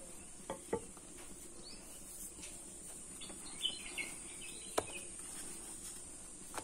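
Light knocks of a rolling pin on the board as dough is rolled out, two close together near the start and a sharper one near the end, over faint bird chirps and a steady high-pitched whine.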